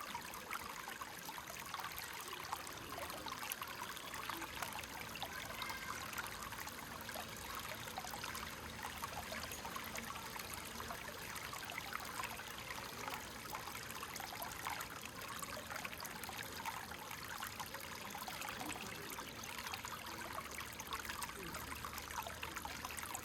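Creek water flowing and trickling steadily over stones, a continuous bright babble.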